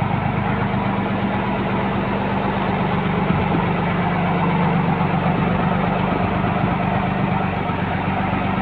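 Tractor engine running steadily at low revs as the tractor, with a rotary tiller hitched behind, moves off slowly.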